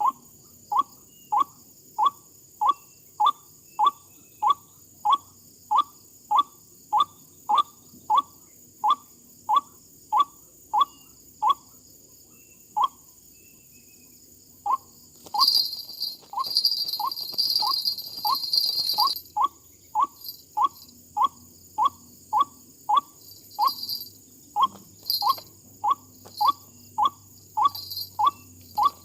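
White-breasted waterhen (dahuk) calling: a monotonous series of short 'kook' notes, about two a second, with a pause in the middle. A steady high insect drone runs underneath, and a burst of hissing noise comes about halfway through.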